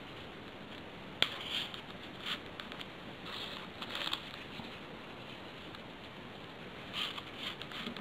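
Folded paper origami modules rustling and clicking faintly as they are handled and slid onto a paper model, with a sharp tick about a second in and soft rustles after it.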